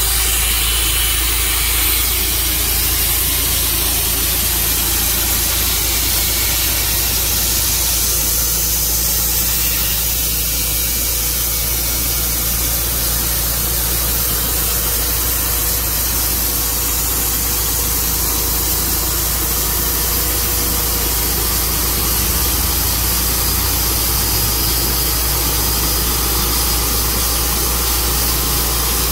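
Tru Cut sawmill's engine running steadily at a constant loud level, with no starts, stops or changes in pitch.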